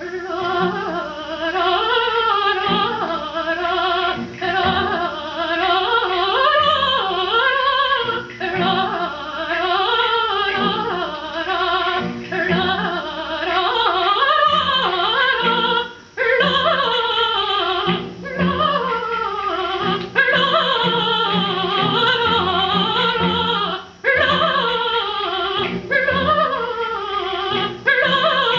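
A record playing on a vintage Clément turntable: classical-style singing with strong vibrato and instrumental accompaniment, with brief pauses between phrases.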